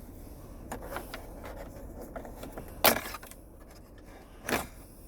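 Plastic trim around a Cadillac SRX center-console pocket being pried loose: light clicks and rattles, then two sharp snaps as its retaining clips pop free, about three seconds in and again a second and a half later.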